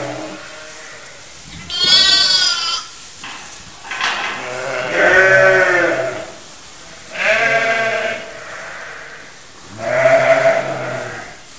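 Sheep bleating in a lambing pen: a series of separate bleats, each about a second long with short pauses between, the first higher-pitched and wavering.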